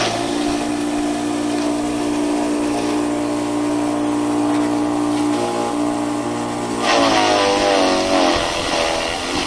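Electric forage chopper-grinder running with a steady hum. About seven seconds in, grass fed into the hopper makes it louder and rougher, its pitch wavering under the load for a second or so before it settles back.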